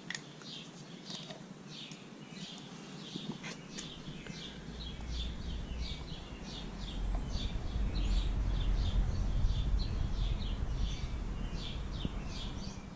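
Small birds chirping over and over, short high chirps a few times a second. A low rumble comes in about four seconds in and grows louder through the middle.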